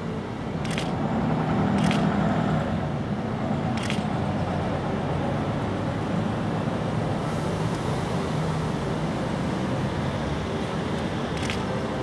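Steady low engine rumble, swelling for a couple of seconds about a second in, with a few short sharp high ticks scattered through it.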